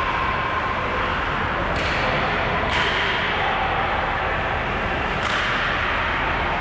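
Ice hockey rink during play: a steady wash of arena noise with a few sharp scrapes and clacks from skates, sticks and puck, about two seconds apart.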